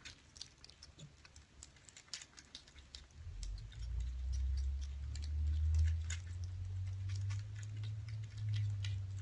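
Kittens eating from food dishes: many small, irregular clicks and smacks of chewing and licking. A steady low rumble comes in about three seconds in and carries on.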